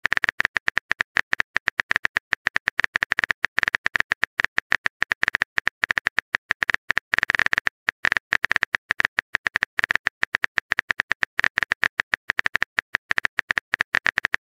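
Phone keyboard typing sound effect: rapid, uneven key taps, several a second with brief pauses, as a message is typed out.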